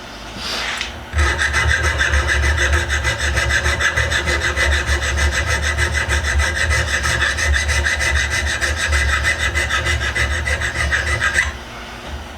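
A small power tool abrading the metal of a mini vise, running steadily for about ten seconds before cutting off sharply.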